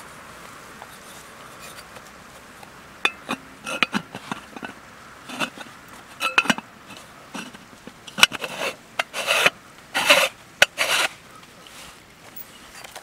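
Irregular knocks and scrapes of objects being handled, building to several longer rasping, rubbing strokes about two-thirds of the way through.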